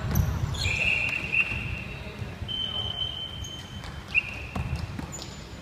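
Basketball sneakers squeaking on a hardwood gym floor, with several short high squeaks and one longer squeak, over the thudding of players running; a single knock sounds about four and a half seconds in.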